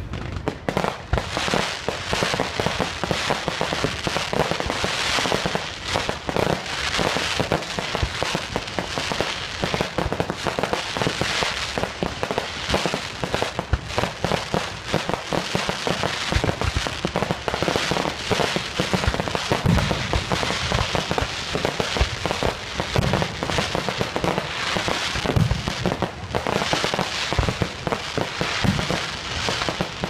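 Fireworks display: a dense, continuous stream of crackles and pops from bursting shells and crackling mines, with heavier bangs now and then.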